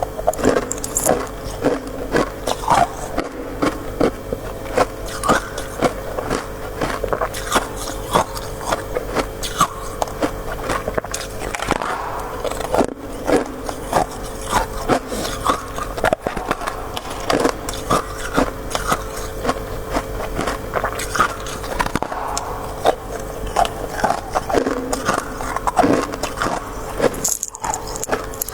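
Close-miked crisp crunching of freezer frost (white shaved ice) being bitten and chewed: dense, irregular crunches throughout, over a steady low hum.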